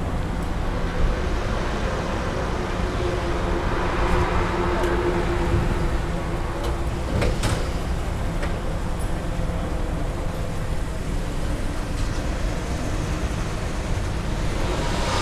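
Steady outdoor rumble with a hiss over it, and a faint hum for a few seconds near the middle.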